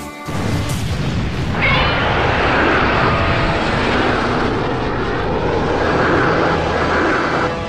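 Loud, steady rushing noise like a jet aircraft. It starts a moment in, grows louder about a second and a half in with a brief rising whine, then drops away near the end.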